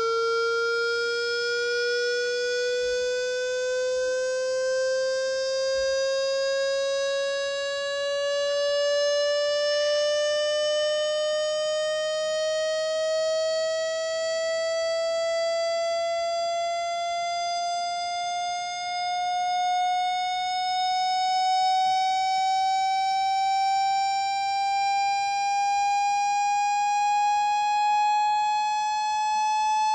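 Water-eject tone: one buzzy electronic tone with many overtones, rising slowly and steadily in pitch to nearly double, played to shake water out of a phone speaker.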